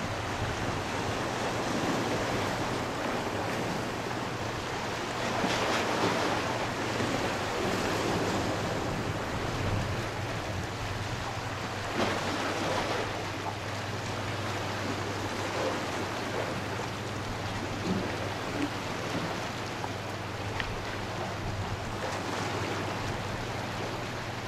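Small waves washing against a rocky shore, with wind on the microphone and a steady low hum underneath.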